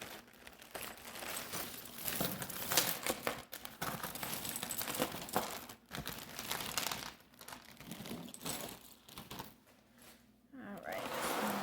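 A bag of mixed jewelry crinkling and rustling in irregular bursts as a handful of pieces is pulled out of it.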